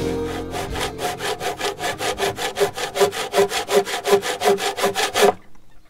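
Small blunt handsaw cutting by hand into a thick timber beam, in fast, even back-and-forth strokes of about four to five a second, stopping suddenly near the end.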